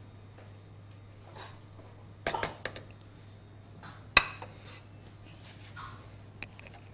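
Cutlery and a ceramic serving plate clinking: a quick run of clinks about two seconds in, one sharp clink a little after four seconds, and a lighter one near the end.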